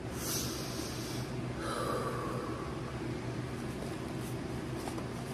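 A woman's annoyed sigh, a hissing breath out, followed by a second softer breath, then a few small clicks of cardboard pudding boxes being handled over a steady low room hum.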